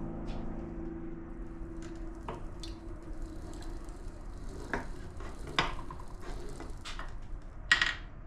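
Metal engine parts and hand tools clinking and knocking on a workbench, as scattered taps with a louder clatter near the end. The tail of electric-guitar music fades out in the first couple of seconds.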